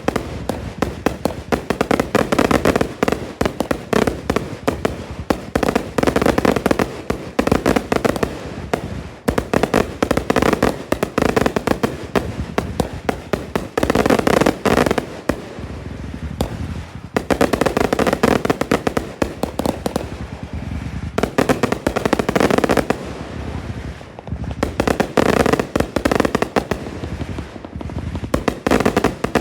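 Fireworks going off in a dense, unbroken barrage of rapid overlapping bangs and crackling, easing briefly a few times before building again.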